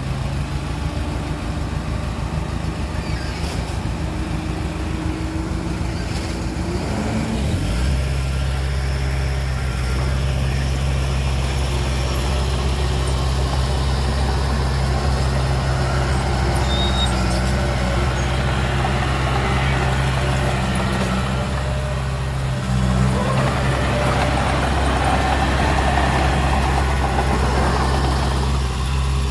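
Heavy diesel engine of a truck running steadily. It changes speed about seven seconds in and runs louder after that.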